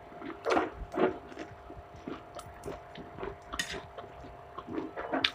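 A person eating instant noodles close to the microphone: irregular chewing and mouth noises, with a faint steady hum underneath.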